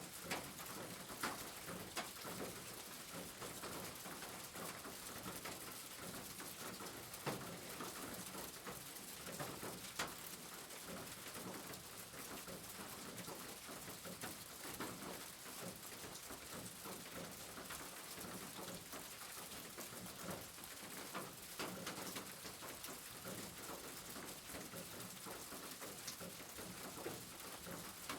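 Rain falling steadily on a roof as an even patter, with now and then a single louder drop striking sharply.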